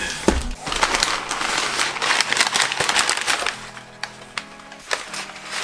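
Crumpled brown packing paper crinkling and rustling as it is pulled out of a cardboard shipping box, over background music. The crinkling is loudest for the first few seconds, then dies down and leaves mostly the music.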